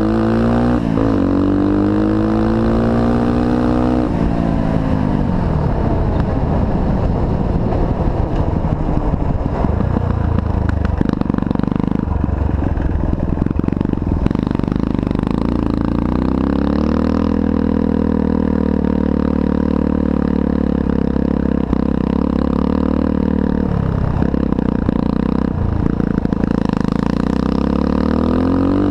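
1986 Honda 125cc dirt bike engine running under way, its pitch rising as it revs up through the first few seconds. Through the middle it turns rough and clattering, then runs steadier, with two brief drops in throttle late on and a rise again near the end.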